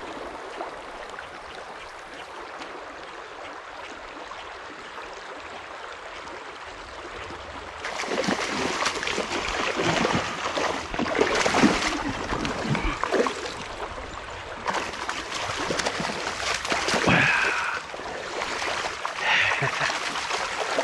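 Creek water running steadily. About eight seconds in, loud, irregular splashing starts and keeps going.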